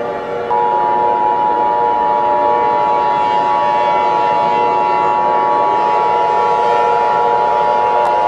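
Emergency Alert System attention signal: two steady tones near 1 kHz sounding together, starting about half a second in and cutting off at the end, over a sustained instrumental background.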